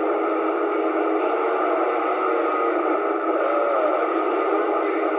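CB radio receiver hiss: steady static through the radio's speaker on an open channel, with faint whistling tones and a short warbling tone about three and a half seconds in.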